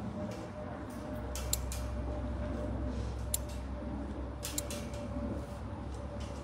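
Several sharp metallic clicks and creaks spread across a few seconds, from the metal transport cage and its door being worked, over a steady low rumble.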